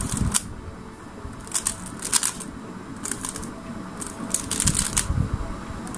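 A Valk3 Power M magnetic 3x3 speedcube turned slowly through an algorithm: irregular plastic clicks and clacks as each layer turn snaps into place, sometimes two or three in quick succession.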